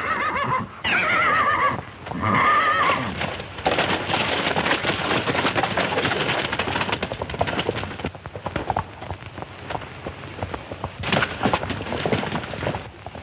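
A horse whinnying twice, a long falling call and then a shorter one, followed by a long run of fast, dense hoofbeats.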